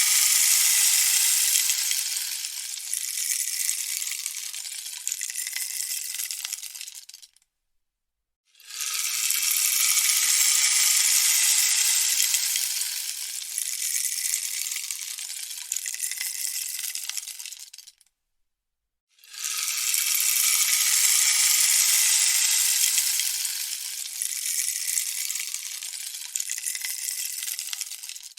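Rainstick turned over again and again: a dense hissing patter of pellets falling through the tube, strongest at the start of each pour and thinning out over about nine seconds until it stops. It falls silent twice for about a second before the next pour begins.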